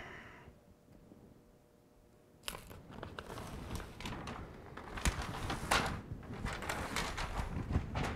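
Release paper being peeled off a strip of self-adhered flashing membrane: crinkling, rustling paper with sharp crackles, starting about two and a half seconds in after a near-quiet stretch.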